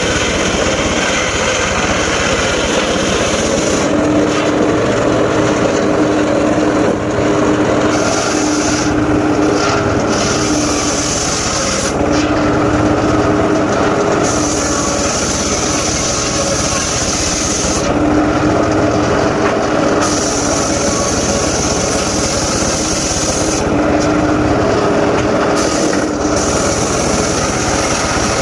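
Engine-driven mobile circular sawmill running continuously while it cuts mahogany and waru logs. A steady hum rises and falls back in spells of a few seconds as the blade works through the wood.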